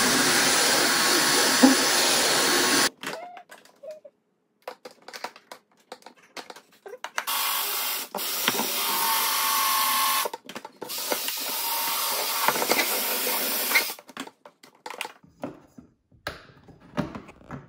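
Ryobi cordless drill spinning a grinding bit against the cut edge of a hole in a plastic storage tote, smoothing it. It runs for about three seconds and cuts off suddenly, then runs again in two spells of about three seconds each from about seven seconds in, with light clicks and knocks of the plastic between and after.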